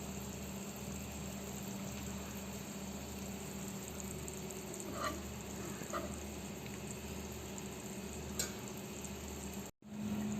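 Chicken broth simmering steadily in a pot, with a few light clinks as the cooked chicken pieces are lifted out.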